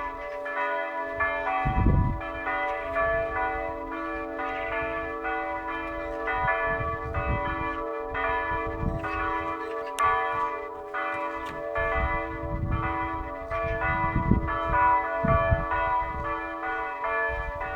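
Church bells ringing continuously, several bells struck one after another in quick succession so that their tones overlap and hang on. A few low thuds come and go under the bells.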